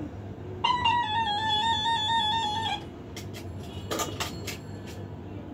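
A single sustained electronic note with a slight regular wobble, played for about two seconds from a mobile phone as the cue sound in a listening-conditioning exercise. Several sharp clicks and knocks follow as a small plastic toy is handled.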